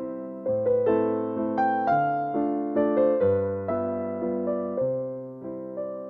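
Background piano music: a slow melody of struck notes that each fade away, about two a second, over lower bass notes.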